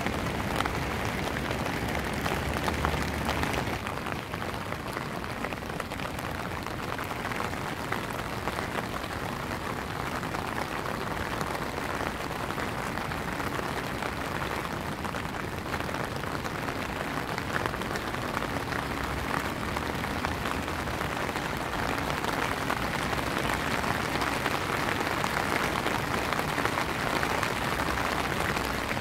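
Steady rain falling on wet paving and the canal: a dense, even patter that grows a little louder near the end.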